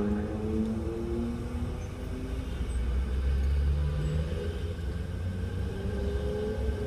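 Street traffic: vehicle engines running and pulling away through an intersection, their pitch rising and falling in the first couple of seconds, with a heavier low rumble about three seconds in as a large vehicle passes.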